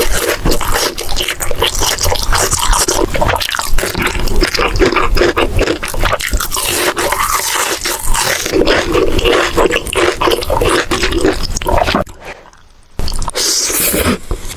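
Close-miked eating: wet, squishy chewing with many small clicks, broken by a brief pause about three-quarters of the way through.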